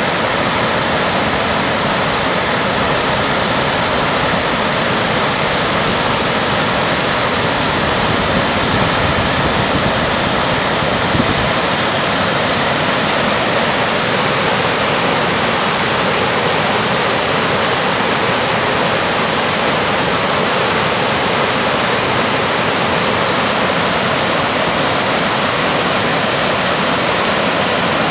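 A creek waterfall cascading over stepped rock ledges into a pool: a loud, steady rush of falling water.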